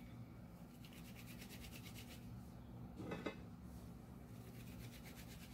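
Faint rubbing of palms rolling a small ball of candy modelling dough, with a brief louder rub about three seconds in.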